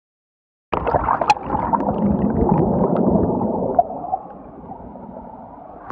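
River water churning and gurgling right against the phone's microphone, as if the phone is dipped in the water. It starts suddenly about a second in and settles to a quieter, steady wash after about four seconds.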